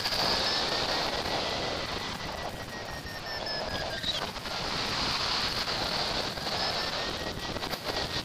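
Airflow rushing past a hang glider in flight, buffeting the microphone, with a faint thin whistle that slowly wavers in pitch.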